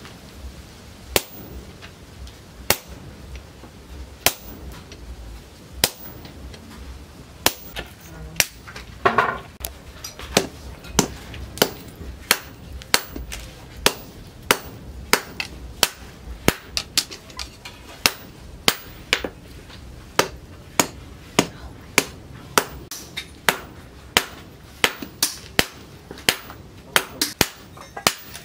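Hand hammer striking red-hot steel on a steel post anvil, a sharp metallic strike with each blow. Single blows come about every second and a half at first, then quicken to more than one a second after about eight seconds.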